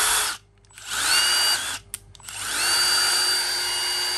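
Milwaukee M18 Fuel 2853 brushless cordless impact driver, run in short trigger pulls. A run stops just after the start, a second lasts about a second, and a longer one of nearly three seconds follows. Each time the motor whines up in pitch and settles to a steady whine.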